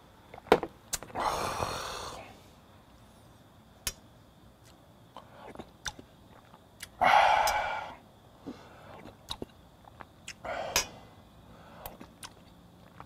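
Eating and drinking sounds: small clicks of a glass and cutlery on the table, a long breathy exhale about a second in after a shot of soju, then a loud slurp from a spoonful of hot spicy fish stew about seven seconds in, with more short slurps and clinks near the end.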